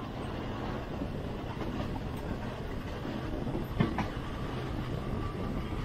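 Passenger train running on the Burma Railway, heard from aboard: a steady noise of wheels and carriage, with one sharp clack about four seconds in.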